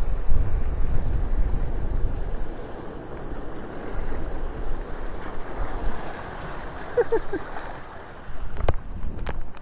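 Sea surf washing steadily with wind buffeting the microphone, gustiest in the first few seconds. A few short chirps come about seven seconds in, and a couple of sharp clicks near the end.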